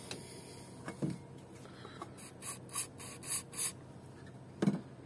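Rubber-gloved hand working a car's thermostat housing back and forth to free it from the engine: a few light knocks, then a run of about five short scraping rubs, and a louder knock near the end.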